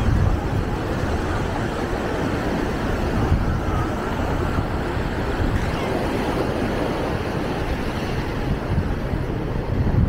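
Ocean surf washing up on the beach, with wind buffeting the microphone and giving a steady low rumble.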